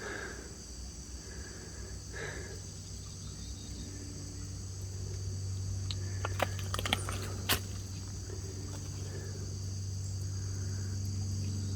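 Steady high-pitched trilling of an insect chorus. A few sharp clicks come about six to seven and a half seconds in.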